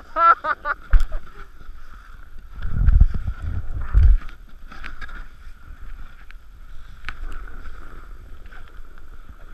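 Snowboard sliding and scraping over packed snow, with heavy low rumbles about three to four seconds in. A person laughs briefly at the very start.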